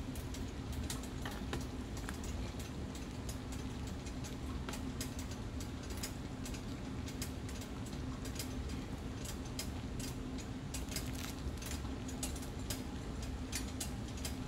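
Thick bean sauce boiling hard in a pot, its bubbles bursting in irregular little pops and ticks over a steady low hum.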